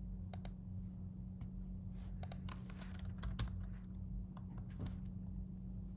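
Typing on a computer keyboard: irregular runs of keystrokes, thickest in the middle, with scattered single key clicks, over a steady low electrical hum.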